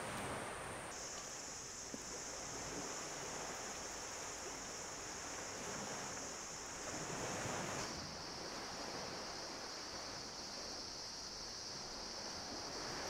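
Evening outdoor ambience: a steady rushing noise with a continuous high-pitched insect drone over it. The drone drops in pitch twice, about a second in and near the eight-second mark.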